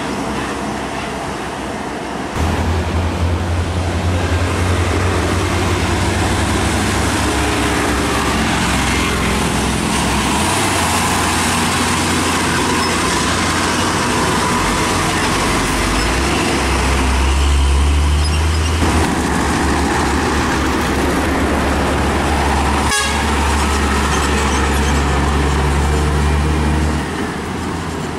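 Heavy diesel trucks running past on a highway, with engine noise and tyre noise, and truck horns sounding at times.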